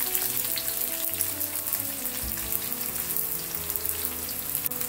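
Freshly added sliced onions sizzling steadily in hot oil in a frying pan.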